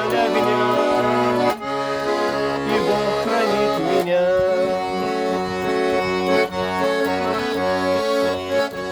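Russian garmon (button accordion) playing an instrumental passage of a song. The right hand holds sustained melody chords over a steady pulsing left-hand bass-and-chord accompaniment, and the chords change twice in the first four seconds.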